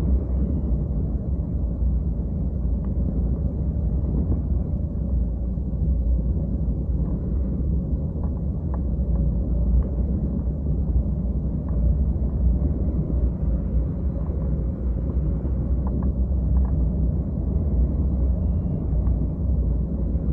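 Steady low rumble of wind buffeting the microphone in flight, with a few faint clicks.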